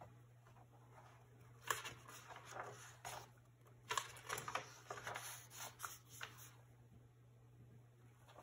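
Paper pages of a paperback picture book being turned and smoothed flat by hand: a few soft flicks and rustles, with a faint low hum underneath.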